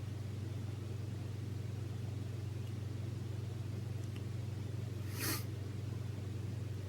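Steady low hum throughout. About five seconds in comes one short hissing rasp, and a second earlier a faint click.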